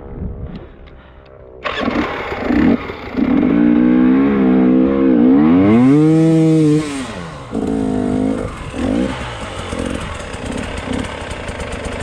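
Enduro motorcycle engine revving hard in repeated bursts, its pitch rising and falling, loudest about five to seven seconds in. It starts quieter and grows suddenly louder after about a second and a half.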